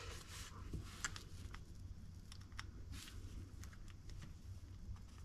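Faint, scattered light clicks and taps of small laser-cut wooden pegs being picked up and fitted into a clear acrylic disc, over a low steady hum.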